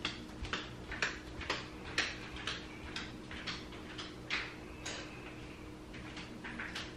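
Faint light clicks, about two a second, over a low steady hum.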